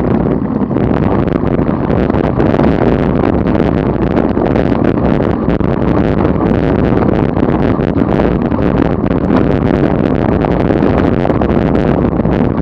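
Steady wind rumble and buffeting on a bicycle-mounted action camera's microphone as a road bike rides at about 25 mph, mixed with road noise.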